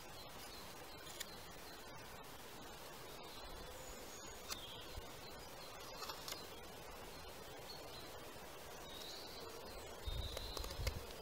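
Faint outdoor background with scattered bird chirps and a few soft clicks of a carving knife paring wood from a spoon blank. A low rumble rises near the end.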